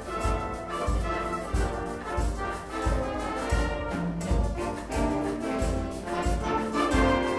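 Wind band playing live: brass chords and melody over a steady low beat of about two beats a second.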